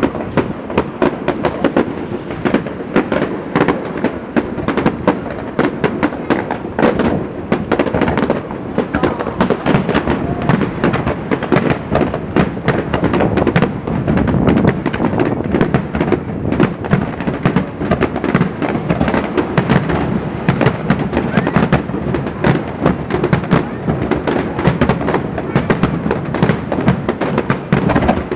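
Fireworks display going off in a dense, unbroken barrage, many sharp bangs a second overlapping one another.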